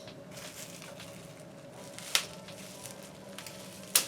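A small plastic-wrapped accessory bundle being handled and opened by hand: soft crinkling with two sharp clicks, one about two seconds in and one near the end.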